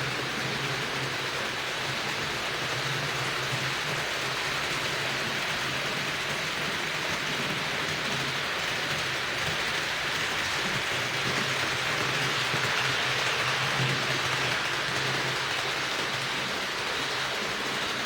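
HO-scale model train running on the track: a steady rolling rattle of metal wheels on the rails, with a low electric motor hum underneath.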